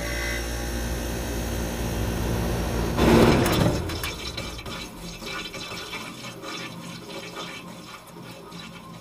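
Logo intro sound effect: a rushing, water-like noise with a low hum swells to a loud burst about three seconds in, then fades out crackling.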